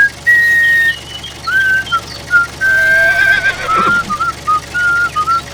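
A whistled tune of single pure notes, some held and some stepping up and down, over a steady low drone. About three and a half seconds in, a short falling squeal cuts across it.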